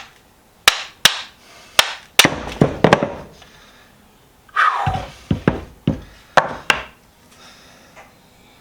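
Hammer blows on a seized, rusted steel vise part whose end has mushroomed, struck to drive it loose. There are sharp strikes in two spells with a short pause between them, and a brief scraping sound midway.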